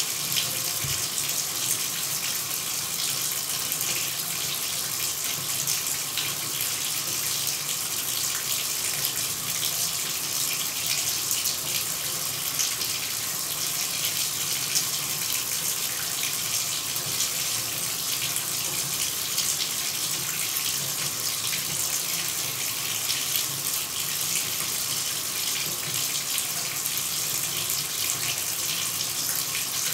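Shower running: a steady, even hiss of falling water spray, brightest in the high range.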